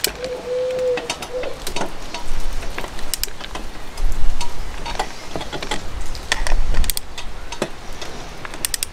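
Small hand ratchet clicking in short irregular runs as it tightens the engine mount screws through the chassis plate of a nitro RC buggy. A few low rumbles sound partway through.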